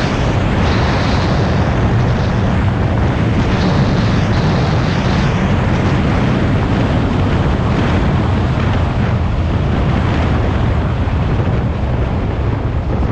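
Wind rushing hard over the microphone of a 2014 Yamaha FZ-09 motorcycle on the move, with the bike's three-cylinder engine running steadily underneath.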